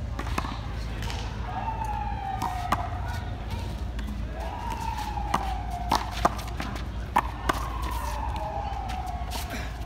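A handball being struck by hand and smacking off a concrete wall during a rally: several sharp smacks, bunched and loudest in the middle. Behind them an emergency vehicle siren wails, its tone jumping up and then sliding slowly down every two to three seconds.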